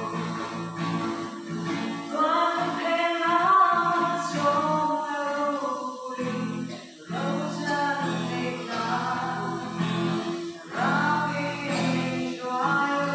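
A woman singing a gospel song while playing an acoustic guitar.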